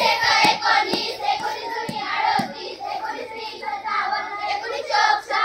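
A group of schoolchildren singing multiplication tables in unison, clapping their hands about twice a second through the first half.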